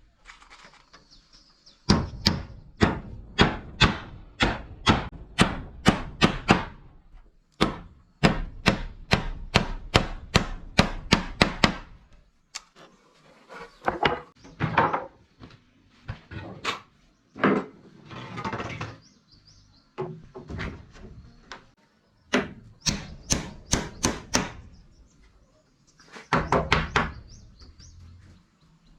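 Repeated sharp blows of a hand tool on wood, in runs of quick strikes about two to three a second, with a stretch of softer, scraping strokes midway.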